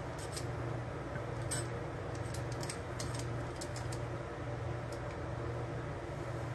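Rotary wheel cutter rolling through the crust of a slice of white bread, giving a scattered series of faint clicks and ticks, over a steady low hum.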